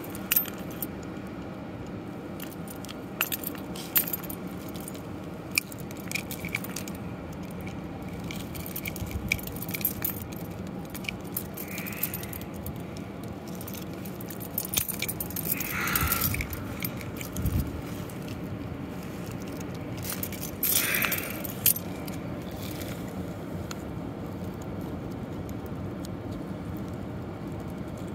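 Sharp clicks and clinks of mussel shells knocking and scraping together as fingers handle a clump of wild mussels on a rock, over a steady low background rush.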